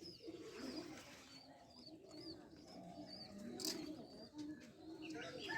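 Faint birdsong: repeated short high chirps over low cooing of doves.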